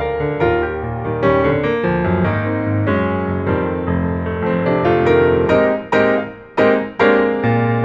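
Background music: piano, playing a steady run of chords and notes.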